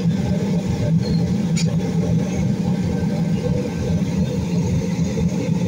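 Steady low rumble of a running motor or engine, with a faint click about a second and a half in.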